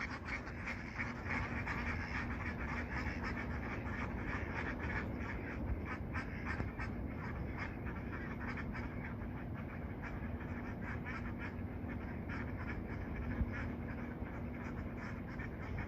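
Sea waves breaking and washing on a beach in a steady rush, with many water birds calling over the surf throughout.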